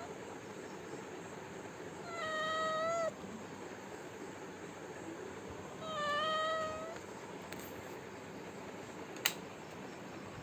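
A cat meowing twice, each meow about a second long, over a steady hiss, begging for food. A single sharp click near the end.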